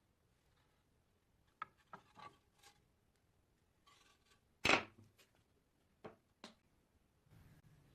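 A few light taps and one louder knock about halfway through, the sound of objects being handled and set down on a work surface.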